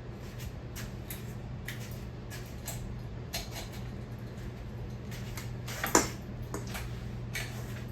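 Emerson Northwind ceiling fan running on high with a steady low motor hum, with scattered light clicks and ticks and one sharper click about six seconds in.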